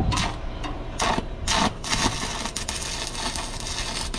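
Stick-welding arc crackling and hissing as a steel plate is tack-welded in place, with a few louder spurts.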